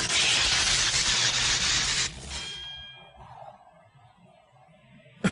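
Cartoon sound effects: a loud rush of noise for about two seconds, then a metallic ding that rings and fades.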